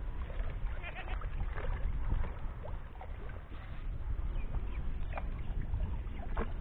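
Water sloshing and splashing around a woman wading with a bamboo-framed hand net through shallow river water and water hyacinth, over a low wind rumble on the microphone. A couple of sharper splashes stand out near the end.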